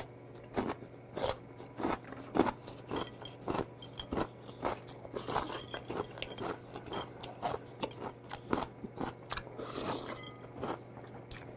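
Close-miked chewing of crunchy kimchi and ramen noodles: crisp crunches in a steady rhythm, about two a second.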